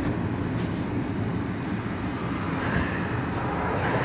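Vehicle engine idling while stopped at traffic lights, a steady low rumble heard from inside the cab.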